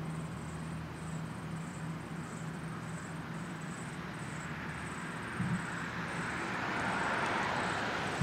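Road traffic: a steady rush of vehicle noise that swells near the end as a vehicle passes, with a low hum that fades out over the first few seconds.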